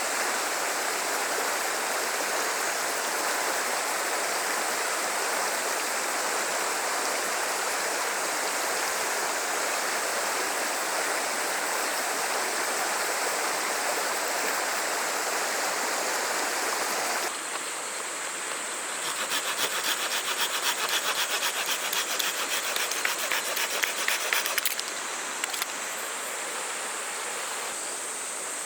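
A small river rushing steadily, with a constant high insect drone over it. After a cut about 17 seconds in, a folding saw cuts through wood in quick back-and-forth strokes for about six seconds, and then stops.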